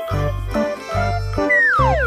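Cheerful children's background music with bouncy bass notes and tinkling chime-like tones. Near the end a whistle-like sound effect slides steeply down in pitch.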